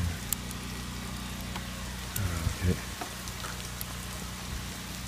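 Light rain pattering steadily, with a few faint clicks as .22 cartridges are pressed into a rifle magazine by hand. A short low murmur of a voice about two seconds in.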